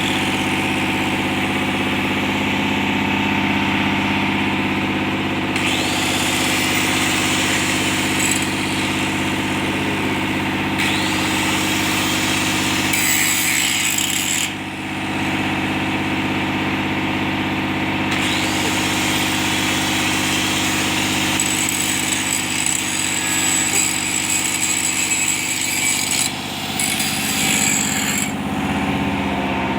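An angle grinder grinding steel in repeated passes, several seconds each, shaping a taper for a weld on a bulldozer's trunnion mount. Under it an engine runs steadily.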